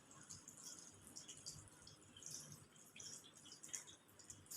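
Faint water from a sink tap running and splashing over hands being rinsed, with small irregular drips and splashes.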